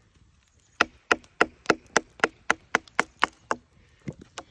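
A hammer strikes the spine of a knife set into a piece of resinous pine fatwood, splitting it into small sticks: about eleven sharp, quick strikes, roughly four a second, then two softer thuds near the end.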